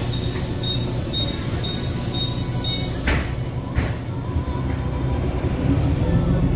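Otokar Kent C-12 city bus cabin: the door warning beeps about twice a second, then the doors shut with two knocks a little after halfway, over the low rumble of the engine. The engine grows louder near the end as the bus moves off.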